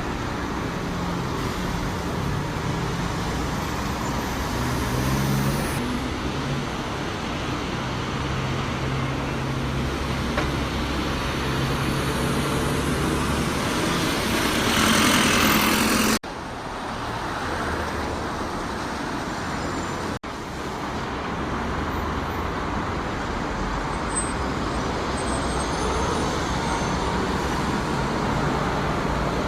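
Road traffic with buses and cars: engines running and vehicles passing. A loud rushing noise swells about halfway through, and the sound drops out sharply twice.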